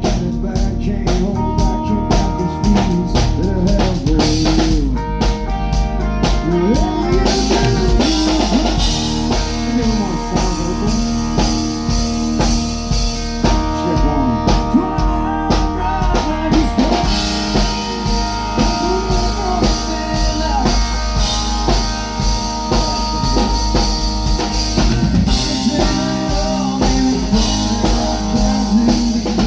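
Live band playing a song through the stage PA during a sound check: a drum kit keeping a steady beat with kick and snare, with electric guitars and bass.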